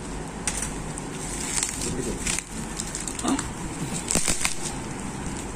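Crinkling and clicking of packaging being handled as an Epson printer ribbon cartridge is unboxed: irregular sharp crackles and clicks, busiest about four seconds in.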